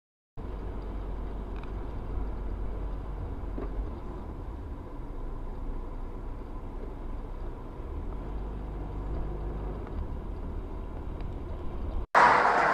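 Steady low rumble of a car's engine and tyres on the road, heard from inside the car through a dashcam microphone. Near the end it cuts off suddenly and a louder, brighter sound starts.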